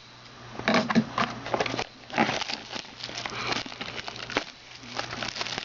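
Trading card box packaging being handled and opened by hand: irregular crinkling and rustling of cardboard and wrapper.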